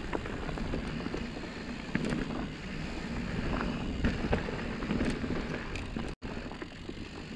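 Mountain bike rolling down a dry dirt trail: a steady tyre rumble with many small clicks and rattles from the bike over rocks and roots, and wind on the microphone. The sound drops out for an instant a little after six seconds in.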